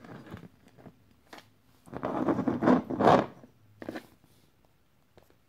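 Glass cologne bottles handled on a wooden floor: a few light knocks, then a loud scraping rasp about two seconds in as the bottles are turned round and slid over the boards.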